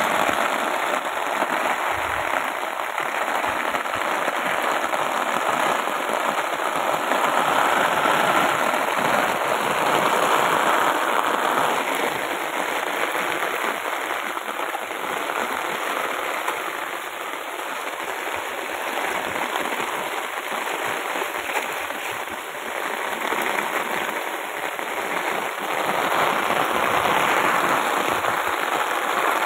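Heavy rain falling steadily, splashing on a wet concrete rooftop terrace.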